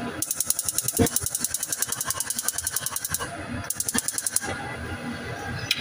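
A spoon scraping quickly back and forth in a frying pan of oil, several strokes a second, in spells of a few seconds with short pauses between them.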